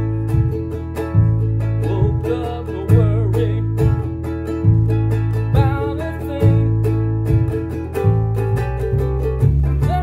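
A concert ukulele strummed in a steady rhythm over a deep bass line played on foot bass pedals, with a man singing along. The low bass notes change about once a second.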